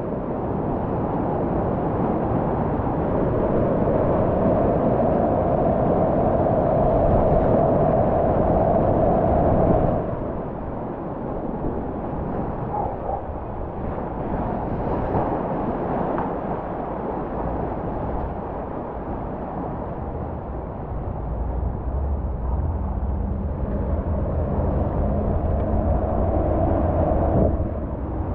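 Whitewater rapids rushing around a kayak, a steady loud churning of water, heaviest for the first ten seconds, easing off and then building again near the end.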